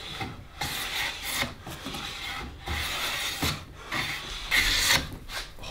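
Stanley Bedrock No. 608 jointer plane cutting shavings off the edge of a wooden board: a run of about six rasping strokes, each half a second to a second long, the loudest near the end.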